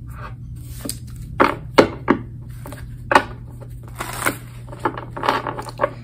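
Tarot cards being handled on a desk: irregular sharp taps and slaps as cards are turned over and laid down, with a quicker cluster of clicks near the end. A steady low hum runs underneath.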